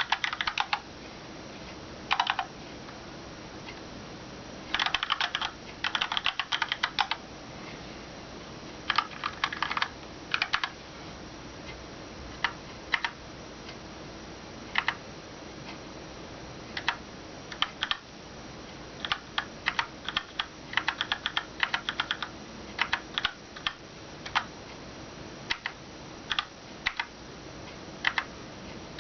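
Typing on a Keychron K2 mechanical keyboard with Gateron Brown tactile switches and ABS keycaps: keystrokes come in irregular runs of quick clicks separated by short pauses.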